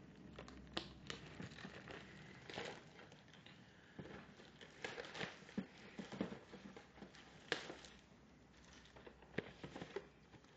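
Plastic wrapping crinkling and tearing, with cardboard being handled, as a sealed box of trading cards is opened: a faint run of scattered crackles and clicks.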